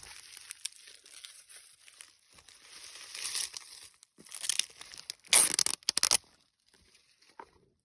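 Packaging crinkled and torn open by hand: rustling that builds to a loud run of several sharp rips about five seconds in, then stops.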